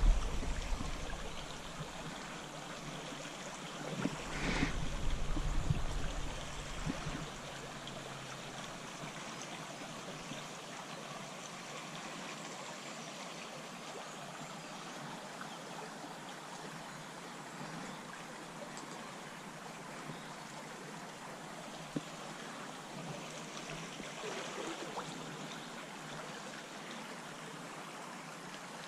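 Small stream running steadily over stones. A short, louder stretch of noise comes about four seconds in, and a single sharp click comes near the end.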